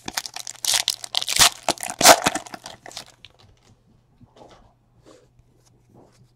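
Crinkly plastic packaging being handled and torn open in a trading-card break, dense crackling for about three seconds, then a few faint taps and rustles as cards are handled.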